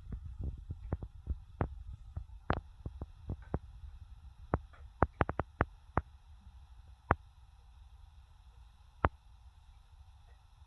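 Irregular sharp clicks and light knocks of parts being handled during assembly. They come thick in the first half and thin out later, over a steady low rumble.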